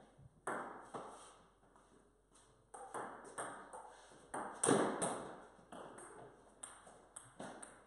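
Table tennis rally: a ping-pong ball clicking off paddles and the table, about two to three hits a second, with a brief pause about two seconds in and the loudest hit near the middle. Each click rings on briefly in the bare garage.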